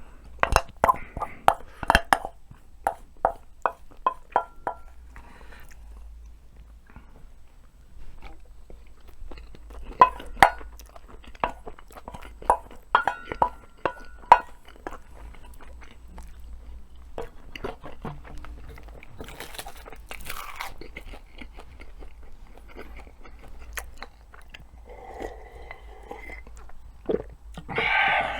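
Close-miked chewing of crunchy food, with runs of sharp, evenly spaced crunches of about three a second in the first few seconds and again about ten seconds in, and quieter wet chewing between.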